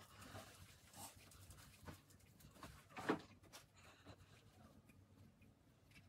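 Quiet room with faint handling sounds as gloved hands press a sushi roll on a board and reach into a bowl of rice, with one short louder sound about three seconds in.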